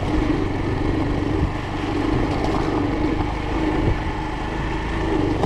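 Engine of a moving vehicle running steadily, with a low rumble of road and wind noise underneath and a slight rise and fall in the engine's pitch.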